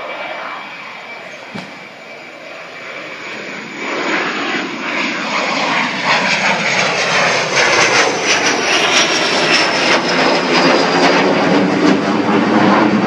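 The twin turbofan engines of a Cessna Citation III business jet passing low overhead. The jet noise grows much louder about four seconds in and stays loud, with a thin high whine that falls slowly in pitch as the jet goes over.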